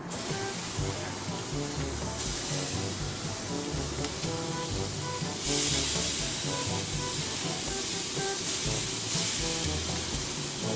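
Marinated chicken skewers sizzling on a hot gas grill, a steady hiss that grows louder about two seconds in and again about five seconds in as more skewers go down. Background music with a steady beat plays underneath.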